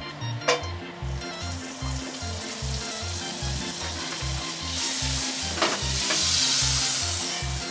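Butter melting and sizzling in a hot frying pan, the hiss swelling from about five seconds in as the butter is pushed around the pan. Background music with a steady beat plays throughout.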